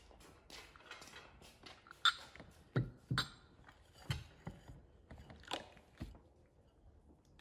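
Terracotta bowls knocking against each other and against the table as they are taken off a stack and set down one by one: about half a dozen sharp clacks, spread unevenly over a few seconds.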